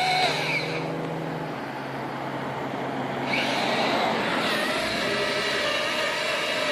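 A car driving past, its engine and tyre noise fading a little mid-way and building again, over a steady low engine hum.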